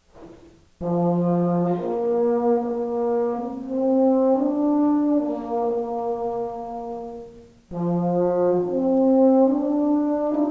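A band plays a slow passage in long held notes, led by brass that sounds like horns. It comes in sharply about a second in, breaks off for a moment near the end, and then starts the phrase again.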